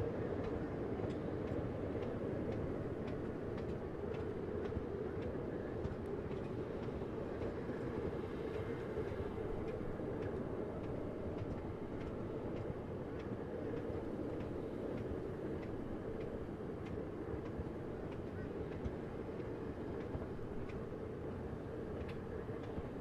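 Sugar cane train of loaded steel cane bins rolling steadily past on the narrow-gauge tramway: a continuous rumble of wheels on rail with frequent sharp clicks, about one or two a second.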